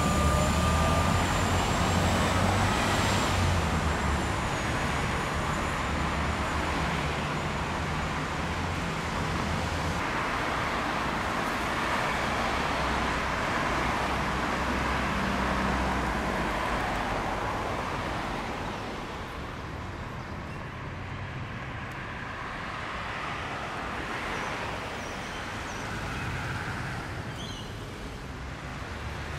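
City street traffic: cars and buses passing with a steady engine rumble and tyre noise, heavier for the first half, then easing off. A faint high-pitched squeal sounds during the first few seconds.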